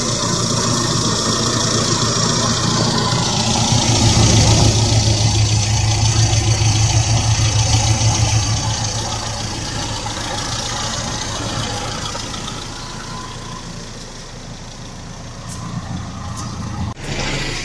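Toyota 4K four-cylinder engine idling on an original Japanese Aisan 5K carburetor, running smooth and steady, a little louder for a few seconds in the middle.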